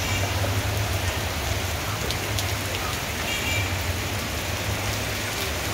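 Heavy rain pouring onto a flooded road: a loud, steady hiss with a low rumble underneath.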